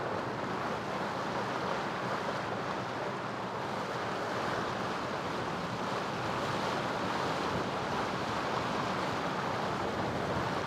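Steady rush of wind and water on a sailboat under way, with wind buffeting the microphone over the wash of water along the hull.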